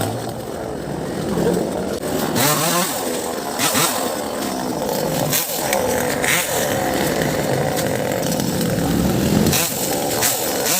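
Chainsaw engine running, its pitch rising and falling as it is revved.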